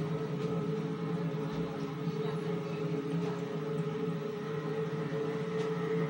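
A steady machine hum with several unchanging tones, holding at an even level.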